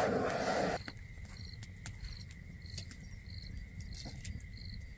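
Crickets chirping in an even rhythm of about two chirps a second over a steady high insect trill, with a few faint sharp clicks. Background music cuts off suddenly under a second in.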